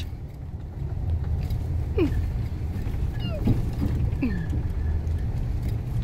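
Steady low rumble of a pickup truck driving over a bumpy road, heard from inside the cab: engine and tyre noise.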